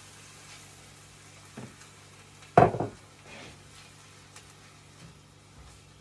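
A pan of softened onions and garlic with chicken stock just poured in, sizzling softly. A light knock about one and a half seconds in and a loud sharp knock about a second later, with a few small clicks after.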